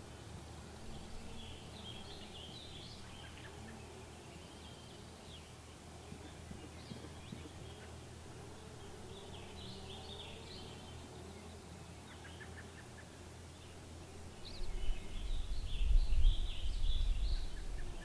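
Small songbirds chirping and twittering on and off over steady outdoor ambience. About three-quarters of the way through, a gusty low rumble of wind buffeting the microphone comes in and becomes the loudest sound.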